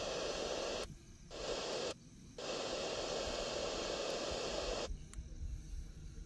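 Steady hissing noise that cuts off abruptly twice and resumes each time, then stops about five seconds in.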